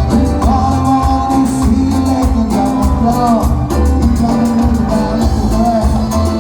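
Live cuarteto band music with a steady pulsing bass beat, a melody line over it and some singing.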